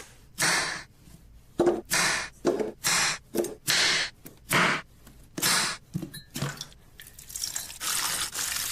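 A knife cutting raw potatoes on a wooden chopping board, about ten short separate cuts, then, about two-thirds of the way through, a steady stream of liquid poured into a pot of potato pieces.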